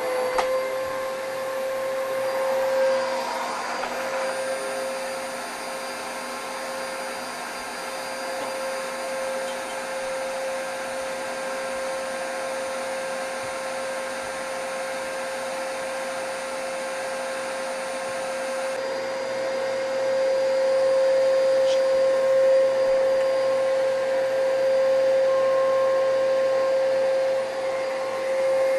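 Vacuum cleaner running steadily with a constant motor whine that holds one pitch. It gets louder about two-thirds of the way through.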